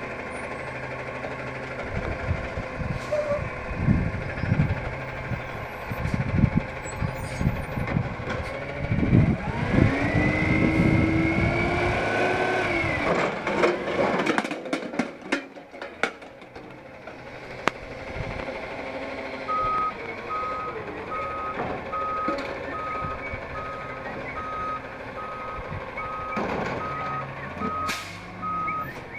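Autocar Xpeditor front-loader garbage truck running while it empties a dumpster: low clanks and knocks, then the engine revs and the hydraulics whine, rising in pitch and then holding, as the arms lift the bin overhead, and a burst of crashes follows as the trash drops into the hopper. From about two-thirds of the way through, a backup alarm beeps steadily, a little less than once a second, over the running engine.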